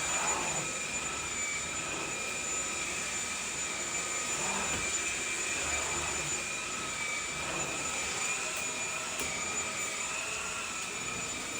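Vacuum cleaner running steadily, its motor giving a continuous whining hum.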